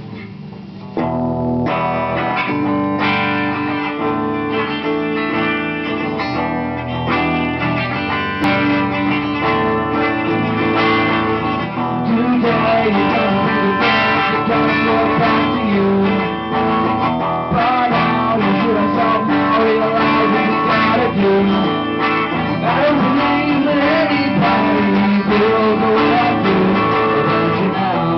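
Guitar music, plucked and strummed, coming in about a second in and playing on steadily.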